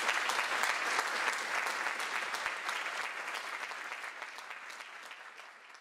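Audience applauding, a dense mass of clapping that gradually fades away.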